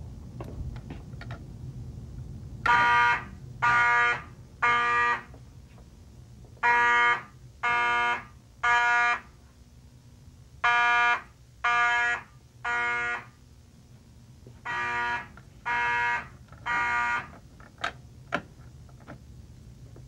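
Mechanical fire alarm horns sounding the temporal-3 evacuation code: four rounds of three buzzing blasts, each about half a second long, with a pause after each round.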